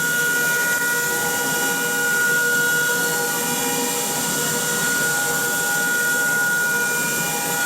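Blue Elephant CNC machine running: a steady high whine made of several tones over a hiss, with shorter tones switching on and off every second or so.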